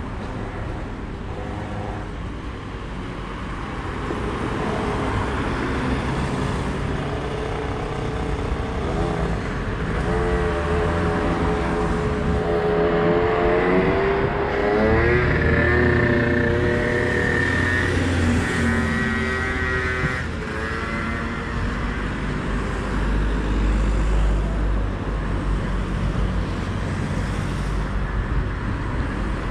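Road traffic: vehicles driving past with a steady low rumble. Around the middle one engine is heard clearly, its pitch climbing and shifting for several seconds as it speeds up.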